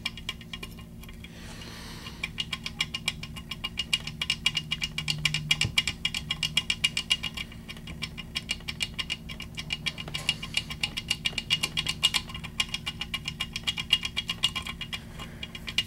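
Foil-wrapped key blank jiggled up and down under turning tension in a Kwikset KW1-type pin-tumbler lock cylinder, making a fast, steady run of small metallic clicks and rattles, several a second. This is foil impressioning: the pins press their depths into the foil.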